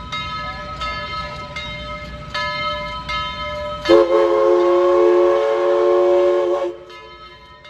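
Whistle of Southern Railway 4501, a 1911 Baldwin 2-8-2 Mikado steam locomotive, blown in one long blast of about three seconds starting about four seconds in. It sounds several tones at once and cuts off sharply.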